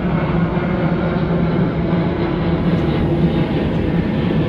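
Bombardier M7 electric multiple-unit train standing at the platform, its equipment giving a steady, loud low hum.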